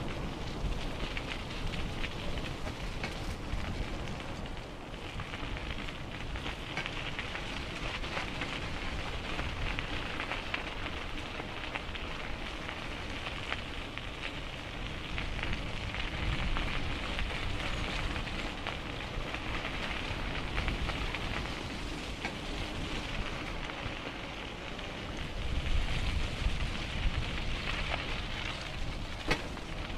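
Bicycle riding noise: tyres rolling on the path with a steady crackling hiss, and wind rumbling on the microphone, which grows louder for a couple of seconds near the end.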